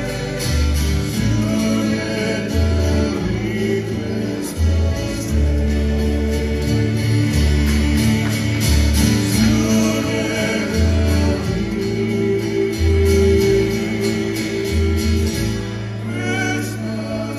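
Live acoustic band, with strummed guitars over a walking bass line, playing a slow Christmas song while men's voices sing in harmony.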